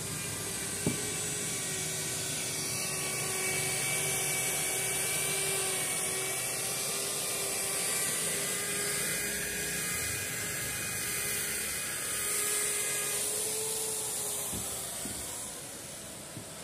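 Electric rotary polisher running steadily with a foam pad, buffing car body paint: a steady motor whine over a hiss, wavering slightly in pitch a few times.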